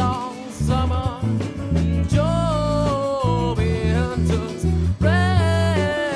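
A song with a singing voice over instrumental backing.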